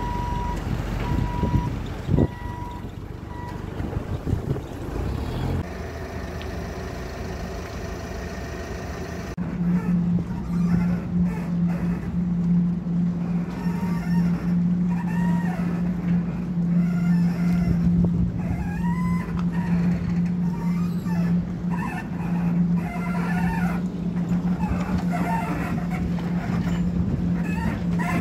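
Steady low machinery hum from the moored expedition ship Maud, starting abruptly about ten seconds in, with high rising-and-falling chirps over it. Before the hum comes wind and lapping water with a few short beeps near the start.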